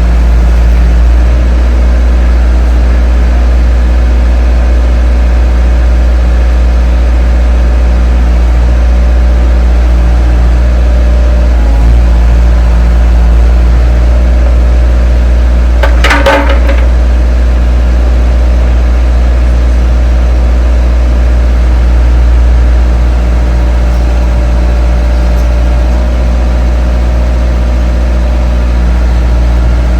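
2002 Bobcat compact excavator's diesel engine running steadily, with a short pitched squeak about halfway through.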